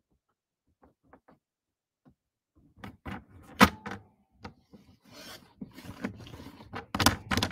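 Cardstock and a paper trimmer's clear cutting rail being handled and shifted: from about three seconds in, a string of sharp clicks and knocks with rubbing and sliding between them, the loudest knock a little after they begin.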